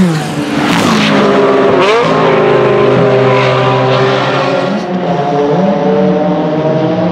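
Ferrari 360 GTC race car's 3.6-litre V8 running hard on track: its pitch falls sharply at the start as the car slows, dips and climbs again about two seconds in, then holds a fairly steady high note with brief dips as it drives through the corner.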